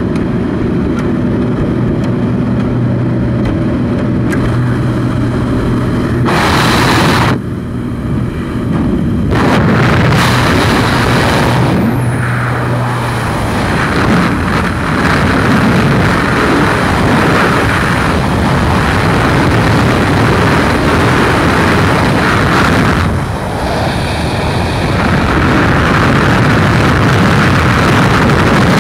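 Propeller engine of a skydiving jump plane, a steady low drone heard from inside the cabin. About halfway through, with the door open and the jumper leaving the aircraft, it gives way to a loud, even rush of freefall wind across the microphone.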